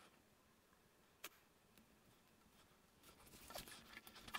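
Near silence, broken by one faint click about a second in and a few faint small clicks and taps near the end, as small parts are fitted into a 3D-printed plastic robot-wrist assembly by hand.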